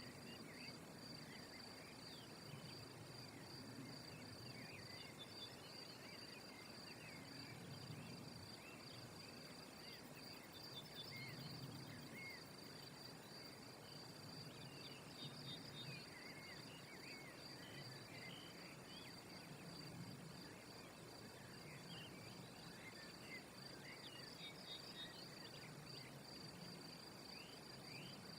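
Faint outdoor ambience: a steady high-pitched insect trill, with short bird chirps scattered throughout and a low background rumble.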